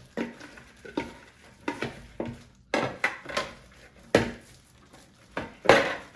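Slime being mixed in a bowl after borax solution has been added to firm it: a string of irregular clicks and knocks, roughly one or two a second, the loudest near the end.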